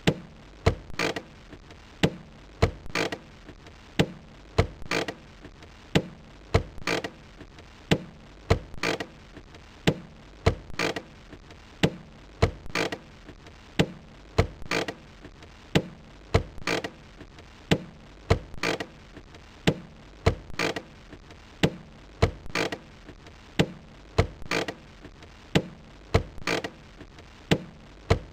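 Car handbrake lever ratcheting: short clusters of sharp clicks about once a second, repeating in an even pattern.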